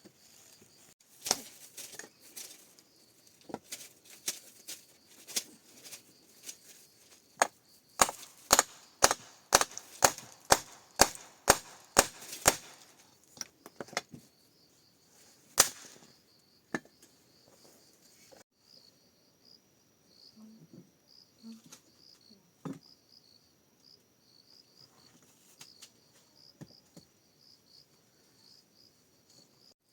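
Chopping on wood: scattered sharp blows, then a run of about ten strikes at roughly two a second, and one last blow a few seconds later. Through the second half, insects chirp in a faint pulsing high trill.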